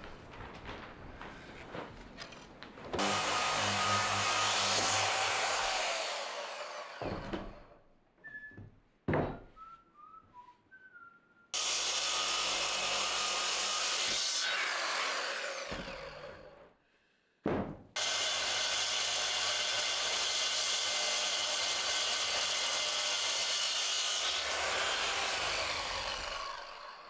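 Festool circular saw cutting a thick timber beam three times. Each cut runs loudly for several seconds and then winds down. Before the first cut there is light scratching, a pencil marking the wood along a square.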